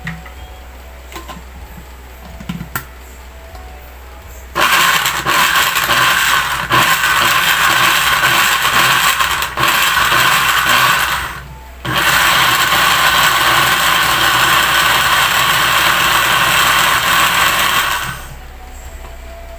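Countertop blender puréeing chopped raw carrots, ginger, beet, apple, cucumber and celery in a glass jar, running in two long bursts of about seven and six seconds with a brief stop between. A few light clicks of the jar and lid come before it starts.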